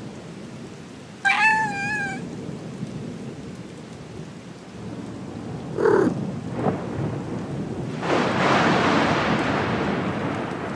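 Steady rain with a low rumble of thunder under it. A house cat gives one wavering meow about a second in, and a shorter call near six seconds. From about eight seconds a louder rush of storm noise swells and slowly fades.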